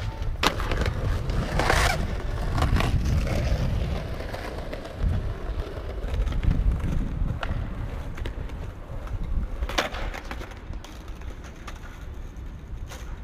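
Skateboard rolling on stone paving with a low rumble, and sharp clacks of the board hitting the ground a few times as tricks are popped and landed.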